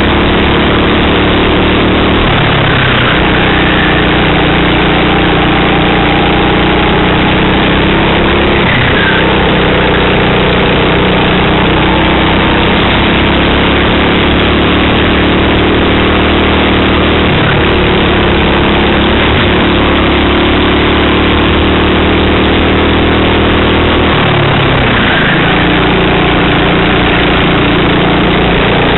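Racing kart engine heard onboard, loud and constant in level, its revs climbing steadily along each straight and falling sharply four times as the kart slows for corners: about two seconds in, around nine seconds, past the middle and near the end.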